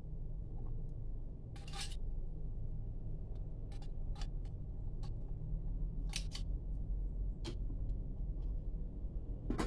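Light metallic clicks and clinks as a gas canister with a small backpacking stove on top is handled and a folding wire canister stand is fitted to its base, with a short scraping rustle about two seconds in. A steady low hum runs underneath.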